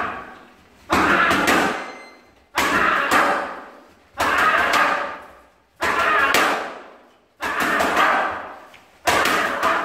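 Boxing gloves hitting focus mitts in quick combinations of two or three punches, one combination about every second and a half, each echoing briefly in the room.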